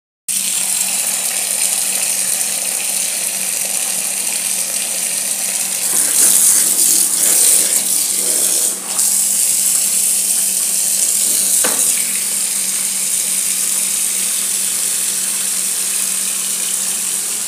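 Water tap running full into a plastic bucket of clothes, a steady rush of water. It is louder for a couple of seconds about six seconds in, while a hand squeezes and splashes the clothes in the bucket.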